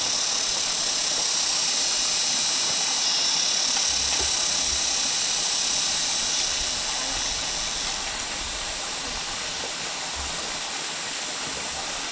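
A steady high hiss, strongest in the upper register, that eases slightly about eight seconds in.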